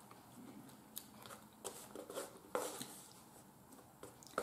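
Faint eating sounds: chewing, with a fork working food on the plate making a few soft clicks.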